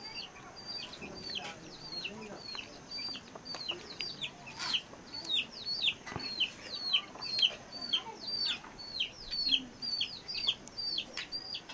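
Chicks peeping in a steady run of high, falling notes, about two or three a second, getting louder about halfway through.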